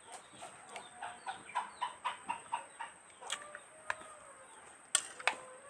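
A chicken clucking: a quick run of short calls, about four a second, then a few slower drawn-out calls, with a few sharp clicks in the second half.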